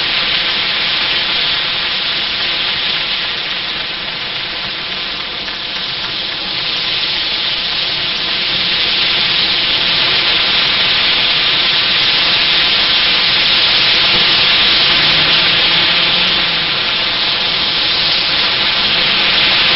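Car tyres hissing on a wet, slushy road as traffic drives past: a steady hiss that rises and falls a little as cars go by.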